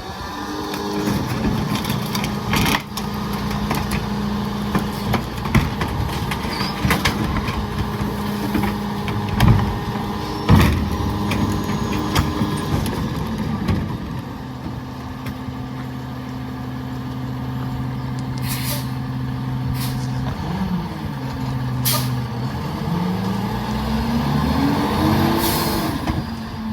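Freightliner garbage truck with a McNeilus rear-loader body running steadily through a pickup, with sharp bangs and clunks in the first half. Several short air hisses come later, and the engine note dips and then climbs near the end.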